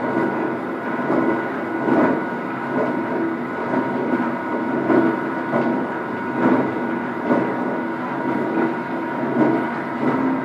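Heavy facing milling machine running with no workpiece on the table: a steady motor-and-gearing hum carrying thin whining tones, with an uneven low throb recurring about once or twice a second.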